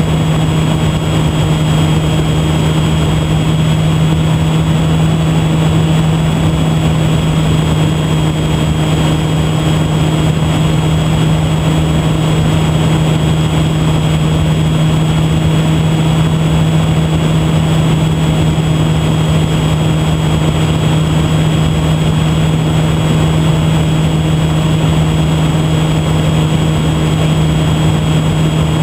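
E-flite Park 480 electric motor and propeller of a HobbyZone Super Cub RC plane, heard through a camera mounted on the plane: a steady drone at constant throttle with a thin high whine over a broad rush of noise.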